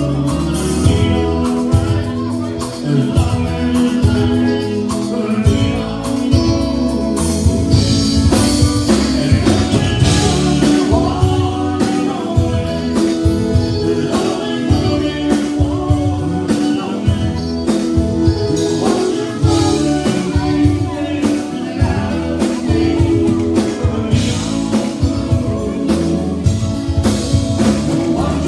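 Live Tejano conjunto band playing through a PA: button accordion, electric guitars, bass and drums over a steady beat, with a man singing lead into a microphone.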